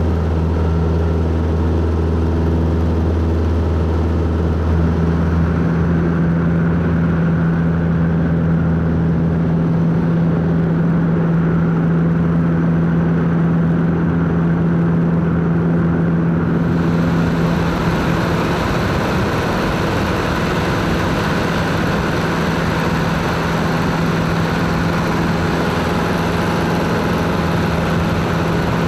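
Robin 2120 light aircraft's piston engine and propeller running steadily in flight, heard from inside the cockpit along with the rush of air. The airflow hiss grows suddenly louder about seventeen seconds in.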